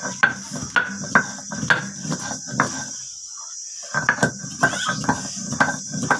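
Stone roller (nora) being worked back and forth on a flat grinding stone (shil), grinding coriander leaves and tamarind into a wet paste: rhythmic scraping knocks about two a second, stopping briefly about three seconds in and then starting again. Crickets chirr steadily behind it.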